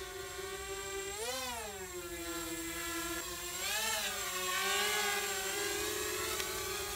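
Emax 250 FPV racing quadcopter's brushless motors and propellers whining in flight close to the ground. The pitch swells up and falls back twice, about a second in and again around four seconds in, as the throttle is raised and eased.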